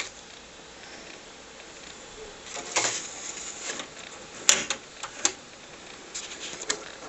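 TRS-80 Model 4 booting, its floppy drives giving scattered mechanical clicks and short rattles, with a sharp click about four and a half seconds in.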